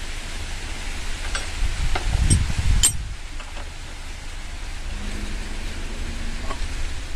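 A few sharp metal clicks and knocks from a hand tool worked on a water pump's fittings, over a steady low rumble.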